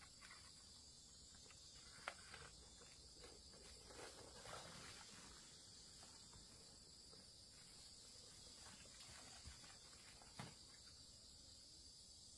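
Faint, steady high-pitched chirring of crickets or other insects, with soft rustling and two light knocks, one about two seconds in and one about ten seconds in.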